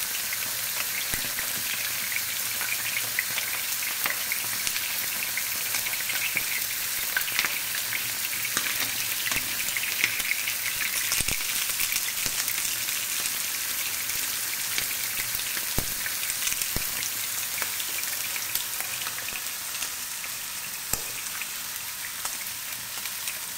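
Eggplant slices frying in hot oil in a pan, a steady sizzle with dense crackling as the oil spits. A few sharp clicks as metal tongs turn the pieces.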